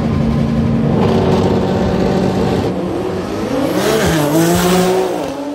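Two drag-racing cars, a Nissan GT-R and another car, held at high revs on the start line. About three and a half seconds in they launch, and the engine notes rise in pitch with a brief dip at a gear change. The sound fades near the end as the cars pull away down the track.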